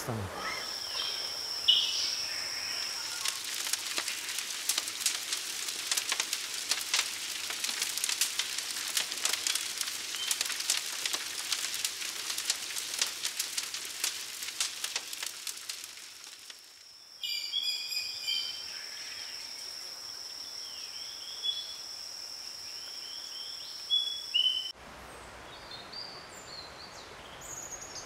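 Fire crackling with dense, rapid pops over a steady high whine. About two thirds of the way through the crackling stops, leaving bird chirps over the same high whine, and then a quieter stretch of chirps.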